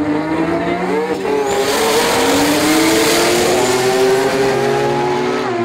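Mazda 20B triple-rotor drag car launching at full throttle and pulling hard down the strip. The engine note jumps up about a second in, then climbs steadily.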